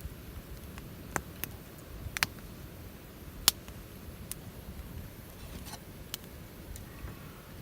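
Wood fire crackling in a Picogrill fire pit: scattered sharp pops and snaps at irregular intervals, about half a dozen, over a low background rumble.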